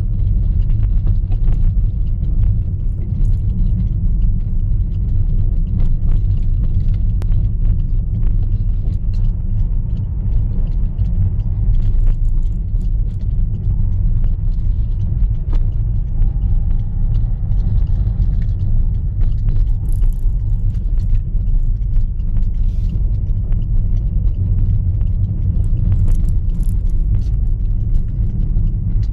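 Car driving, heard from inside the cabin: a steady low rumble of engine and tyres, with scattered faint clicks and knocks.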